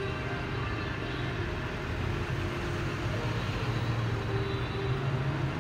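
Vehicle engine running as a pickup truck drives slowly past, a steady low hum that grows a little louder about halfway through.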